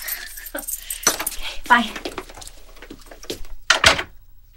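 Dishes and utensils clinking and clattering in a string of light knocks, with a louder knock about four seconds in.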